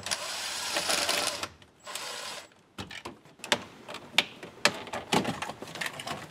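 A cordless power driver runs twice, backing out the screws of the dash's HVAC control panel. This is followed by a string of sharp plastic clicks and snaps as the climate control module is worked loose and pulled out of the dash.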